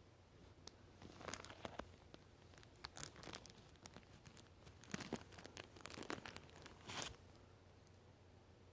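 Crinkling and rustling of a plastic or paper packet being handled, in three short bouts: about a second in, around three seconds in, and again from five to seven seconds.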